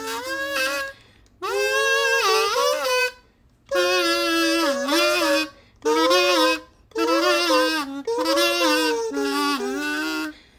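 A kazoo buzzing a slow melody, one note line rising and falling in several phrases with short breaks between them.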